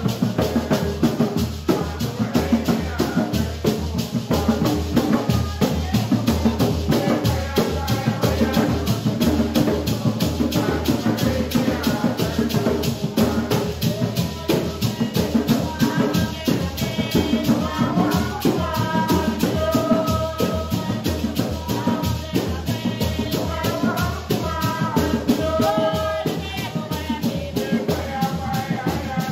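Garifuna hand drums played live in a fast, steady rhythm. Voices singing join the drums about halfway through.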